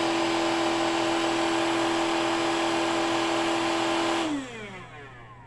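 Small electric motor of a cordless floor cleaner running with a steady whine, then switched off about four seconds in and spinning down with falling pitch.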